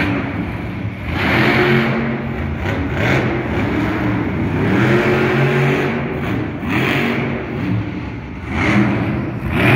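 Stone Crusher monster truck's supercharged methanol V8 engine revving hard, surging up and falling back in pitch several times as the truck is driven through freestyle tricks.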